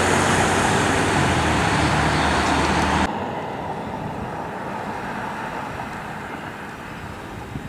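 Bombardier Global Express business jet's engines running loud on the runway, a dense jet roar that cuts off abruptly about three seconds in. After the cut comes the quieter, steady jet rush of another Global Express on final approach, with a faint whine.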